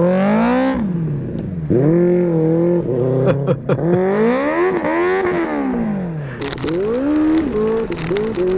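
Benelli 600i's inline-four engine revving hard, its pitch climbing and then dropping back four or five times as the superbike is ridden off and pulled through the low gears.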